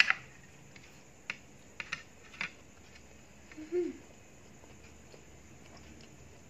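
A metal spoon clicking against a plastic plate a few times, the sharpest click at the very start, among small eating sounds, with a short hummed 'mm' about four seconds in.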